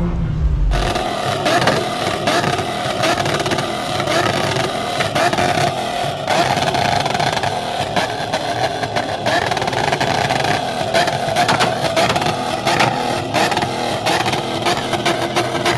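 LSX V8 engine of a custom street car running loudly close to the microphone, a dense stream of uneven pulses. It starts just under a second in, after a cut.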